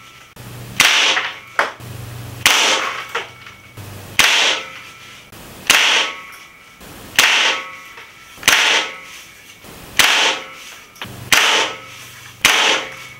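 Stoeger S4000-E .22 air rifle firing pellets into a cardboard target, about nine sharp shots, one every second and a half or so, each with a short fading tail.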